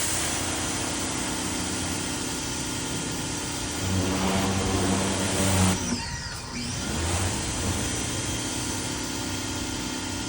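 Greenworks 1900 PSI electric pressure washer running, its motor and pump humming steadily under a hiss of water spray. It gets louder for a couple of seconds about four seconds in, then briefly winds down and picks up again, as when the trigger is let off and squeezed again.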